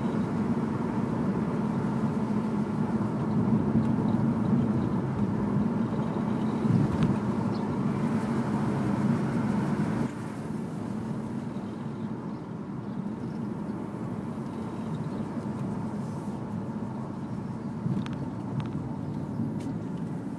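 Inside the cabin of an E46 BMW 318Ci on the move: the steady drone of its four-cylinder petrol engine mixed with tyre and road noise. The drone becomes noticeably quieter about halfway through.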